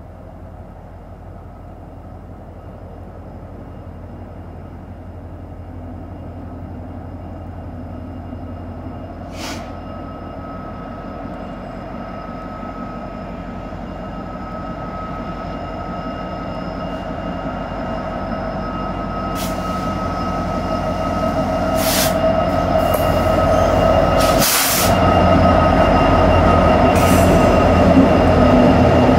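Norfolk Southern diesel freight locomotives approaching and passing, their engine rumble growing steadily louder, with a steady high whine and a few sharp clicks in the second half as the lead units go by.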